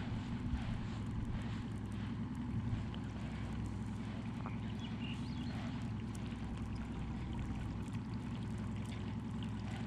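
Boat motor running steadily at low speed, a low even hum, with faint water splashes in the first few seconds.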